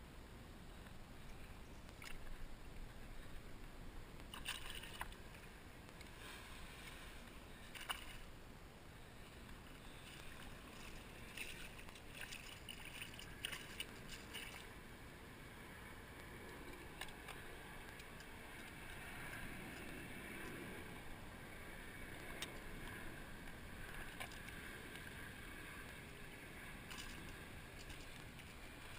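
Shallow salt water sloshing and splashing while a small hooked fish is fought in and lifted out of the water, with scattered sharp clicks and rattles from the rod and tackle, most of them in the first half.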